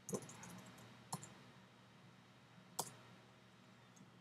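A few faint computer keyboard key clicks, isolated and spaced a second or more apart.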